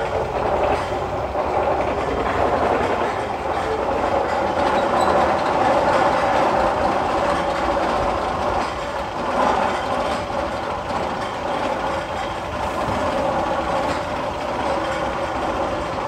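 Magnum XL-200 roller coaster train being hauled up its chain lift hill: a steady rapid clatter of the lift chain and train running the whole time.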